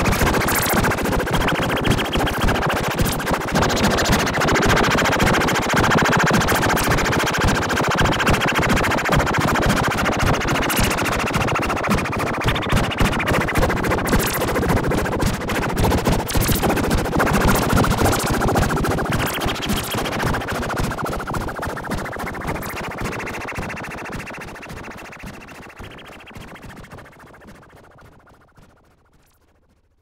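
Harsh, distorted crackling noise, a dense rapid crackle with no steady alarm tone, fading out gradually over the last ten seconds.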